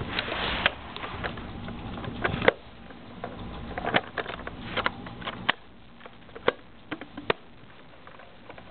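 Scattered light clicks and taps of handling, about a dozen spread irregularly, over a low hiss that drops away about two and a half seconds in.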